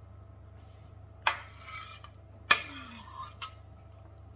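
Utensils clinking against dishware: two sharp clinks about a second apart, each ringing briefly, followed by a few lighter taps.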